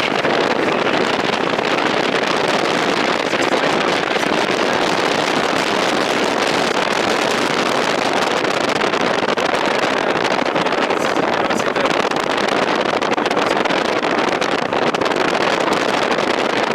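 Steady rushing wind and travel noise of a moving vehicle, an even roar without engine pitch that holds level throughout.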